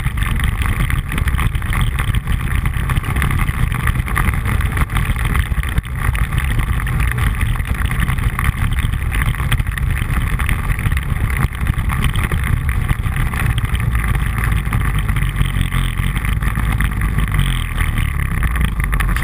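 ATV engine running steadily as the quad rides along a rough dirt trail.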